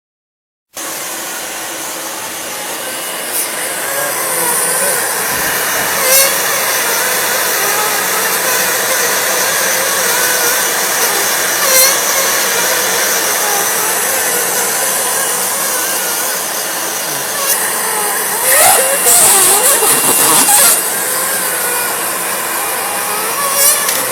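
Continuous band sealer, the ESPM 100PA bag sealing machine, running steadily with its motor and conveyor noise; it starts suddenly just under a second in. A few sharp clicks come through, with a louder, busier stretch about 18 to 21 seconds in.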